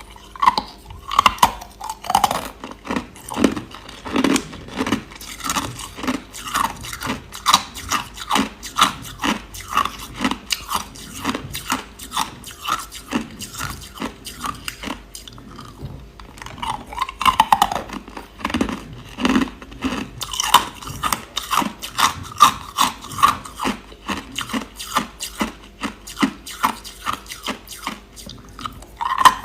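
Clear, hard crushed ice being chewed close to the microphone: a steady run of sharp, crackling crunches, several a second, easing off briefly about halfway through before picking up again.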